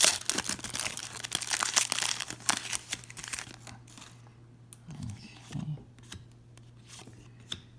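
Plastic wrapper of a basketball card pack being torn open and crinkled in the hands, dense for about three and a half seconds, then thinning to a few light clicks and rustles as the cards are handled.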